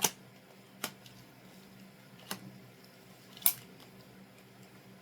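Four sharp clicks of lightsaber hilt parts being fitted together, spaced a second or more apart, the loudest about three and a half seconds in.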